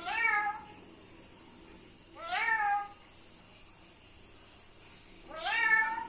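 A pet parrot mimicking a cat's meow three times, each call rising then falling in pitch, about two and a half seconds apart.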